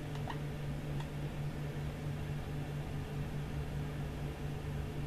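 Dry-erase marker squeaking briefly on a whiteboard a few times in the first second, over a steady low hum.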